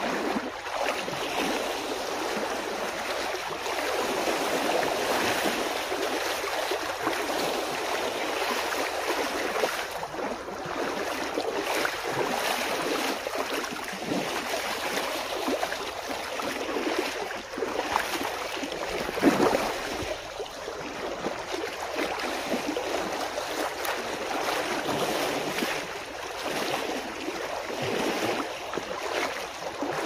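Shallow seawater sloshing and splashing around feet wading over slippery submerged rocks, with small waves washing against the rocky shore. One louder splash comes about two-thirds of the way through.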